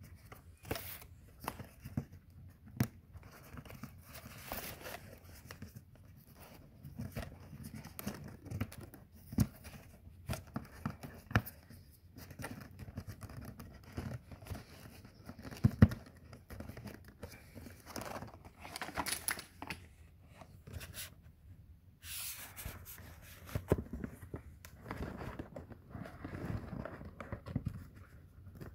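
Cardboard box insert rustling and scraping as a security camera is worked free of its packaging, with scattered knocks and taps; the loudest is a single sharp knock about sixteen seconds in.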